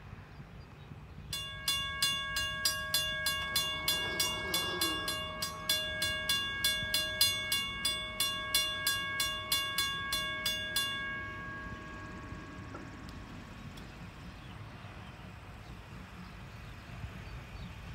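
Grade-crossing warning bell ringing in a fast, even run of about four strokes a second while the crossing gate arms lower. It stops about eleven seconds in, once the gates are down, leaving faint low background noise.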